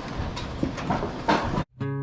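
Irregular knocking and rattling noise that cuts off abruptly about a second and a half in. After a moment's silence, strummed acoustic guitar music begins.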